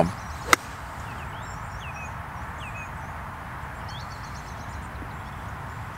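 A golf club strikes a ball once on an approach shot, a single sharp click about half a second in. After it there is steady open-air noise with birds chirping.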